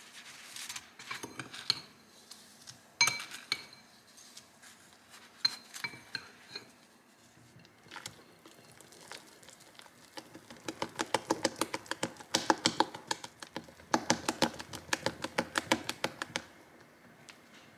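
A metal spoon clinks against a glass bowl a few times while cinnamon sugar is spooned over a donut. From about ten seconds in, a silicone spatula folds custard and whipped cream in a glass bowl: a fast, busy run of soft clicks and smacks, the loudest sound here, stopping shortly before the end.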